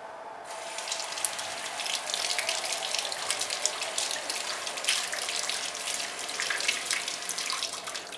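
Tap running into a sink, the water splashing unevenly as something is rinsed under it; it comes on about half a second in and eases off near the end.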